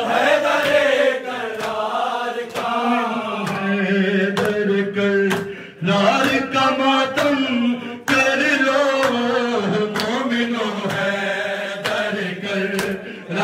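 A man chanting an Urdu noha (a lament) into a microphone, in a wailing, drawn-out line. Sharp hand slaps from matam, open-hand chest beating, fall through it.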